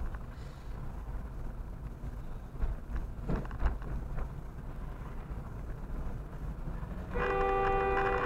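A car driving over a rough road, heard from inside the cabin as a low steady rumble, with a few short knocks about three seconds in. About seven seconds in, a two-note car horn sounds and is held steady for nearly three seconds.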